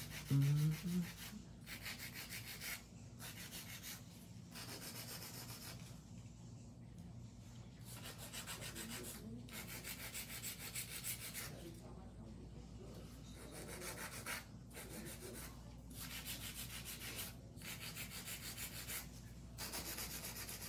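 Hand nail file, 100/100 grit, rasping across the tips of acrylic nails in quick back-and-forth strokes to crisp up a coffin shape, with short pauses every second or two.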